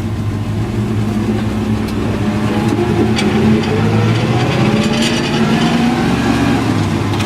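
1963 Chevrolet C30 one-ton truck's engine running as the truck is driven at low speed, heard from inside the cab, picking up speed with a rising pitch about halfway through.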